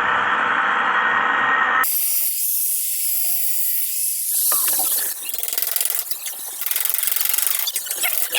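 Background music cuts off about two seconds in. It gives way to a steady high hiss and then to irregular, uneven scraping strokes of steel being worked on a cleaver blade.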